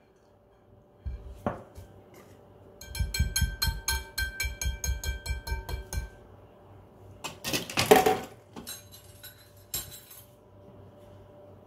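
Wire whisk beating batter in a glass bowl: a fast, steady run of clinks as the wires strike the glass, about six a second, with the bowl ringing. A single louder clatter follows near the end.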